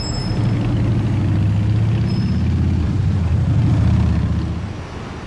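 Low diesel engine rumble of a heavy road vehicle passing close by, swelling about half a second in and fading away after about four and a half seconds.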